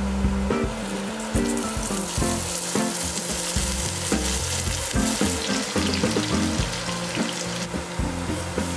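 Sliced onion, scallion and garlic sizzling in a frying pan as cooking oil is added over them, the sizzle growing louder about a second in and thinning near the end. Soft background music with steady low notes plays underneath.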